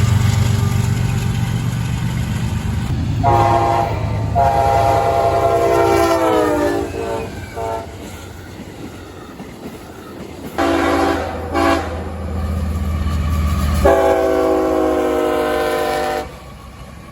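CSX freight train's diesel locomotive horn sounding five blasts over the steady rumble of the passing train: a short and a long blast, the long one sliding down in pitch at its end, then, a few seconds later and at a lower pitch, two short blasts and a final long one that cuts off near the end.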